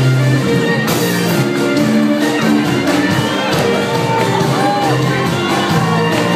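Live band playing a marinera norteña, held notes and a melody over sharp percussive accents.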